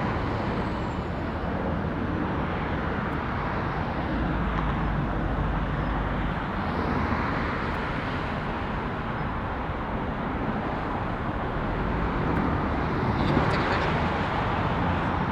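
Steady outdoor rumble of road traffic mixed with distant jet-engine noise, with no sudden events.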